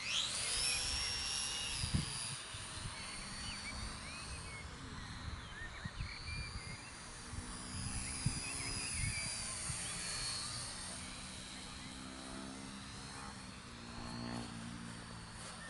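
A Sport Cub 500 RC plane's small electric motor and propeller whining, climbing sharply in pitch as the plane is hand-launched at full throttle. It settles into a steady high whine that wavers in pitch as the plane flies around, growing fainter towards the end.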